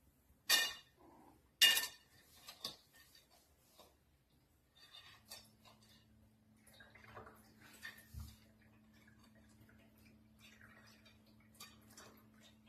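Two sharp clinks, like hard objects knocked together, then scattered light ticks and clicks. A low steady hum comes in about five seconds in.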